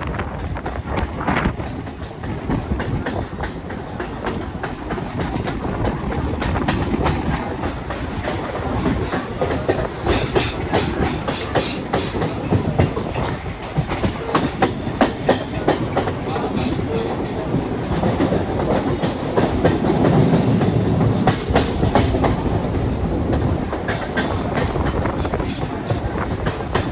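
A train running along the track, its wheels clacking over rail joints. The clacks come thicker from about ten seconds in. A thin high whine is heard for a few seconds near the start.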